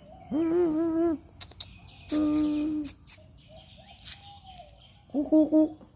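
A puppy whining in three high cries: two long cries of under a second each, then a short broken cry of three quick pulses near the end, the loudest.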